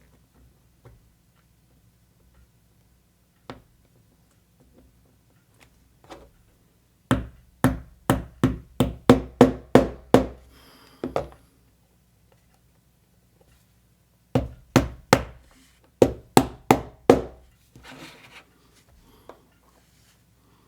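Small hammer tapping on thin wooden kit parts in two quick runs of strikes, about ten and then about eight, roughly three a second.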